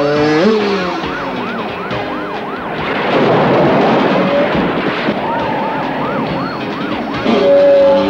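Police car siren wailing in fast, evenly repeating rises and falls, about three a second. An engine revs up about half a second in and again near the end, with a rush of noise in the middle.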